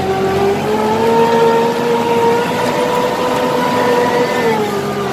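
Tractor engine running steadily while pulling a cultivator over the field. Its pitch rises about a second in and drops back near the end.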